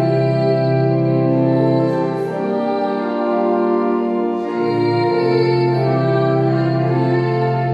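Pipe organ playing slow, held chords; the bass notes drop out for about two seconds midway, then return.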